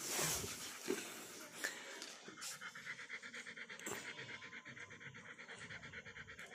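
Doberman panting steadily in a fast, even rhythm, with a few light taps in the first seconds.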